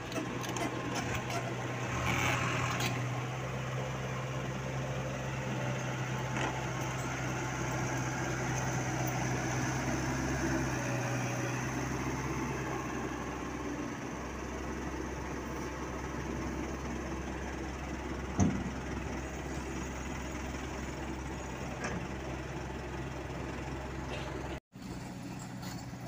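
Isuzu Elf NMR 71 dump truck's diesel engine running steadily with an even hum. A single sharp knock sounds about two-thirds of the way in, and the sound cuts out for an instant near the end.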